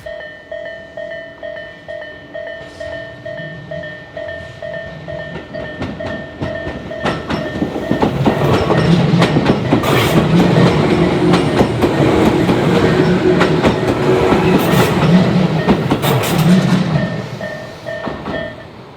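Japanese level-crossing warning bell ringing in an even two-strokes-a-second rhythm while a train passes. The train comes in loud about eight seconds in, with a run of sharp wheel clicks, and fades away near the end, when the bell also stops.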